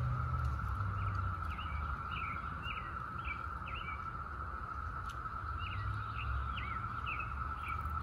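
Steady droning chorus of Brood X periodical cicadas. A bird repeats short chirping notes over it from about a second and a half in, and a low rumble comes and goes.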